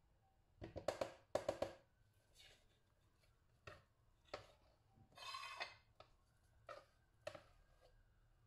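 Silicone spatula knocking and scraping thick hummus out of a bowl: a quick cluster of knocks in the first two seconds, a short scrape about five seconds in, and a few single taps.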